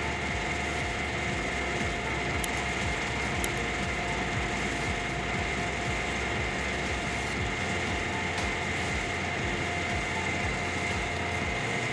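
Heavy machinery running steadily, a constant engine drone with a steady high whine over it.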